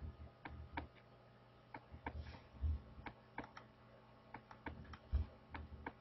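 Faint recorded heart sounds with a third heart sound (S3) following the second: low, dull thuds in repeating groups about once a second. Light clicking runs through it.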